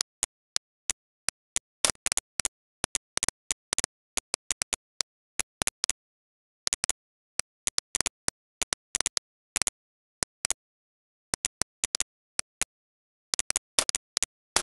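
Computer mouse clicking: dozens of short, sharp clicks at an irregular pace, some single and some in quick pairs or clusters, with dead silence between them.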